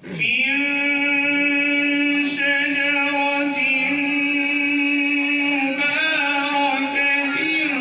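A man reciting the Quran in a melodic chant (tilawat). His voice starts abruptly and holds one long, steady note, then turns through a few small pitch ornaments near the end.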